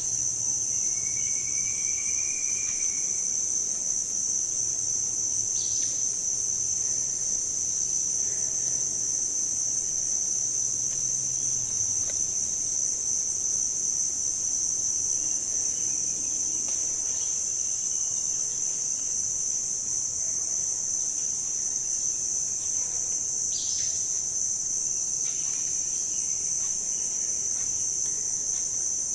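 Steady, unbroken high-pitched drone of insects, crickets or cicadas. A faint short whistle comes about a second in, and brief chirps come twice.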